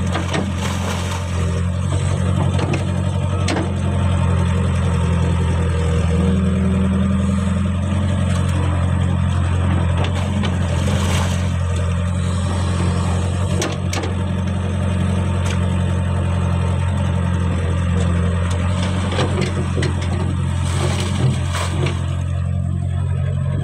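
Caterpillar E70B excavator's diesel engine running steadily under hydraulic load while the boom and bucket dig and lift wet mud. A few sharp knocks sound over it.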